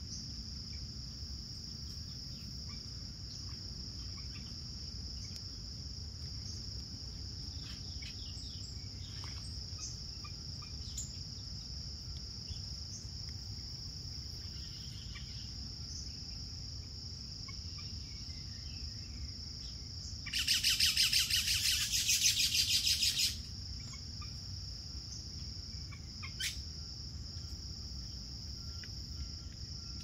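Tropical secondary-forest ambience: a steady high-pitched insect drone with a few faint bird chirps. About twenty seconds in, a loud, rapid rattling buzz lasts about three seconds.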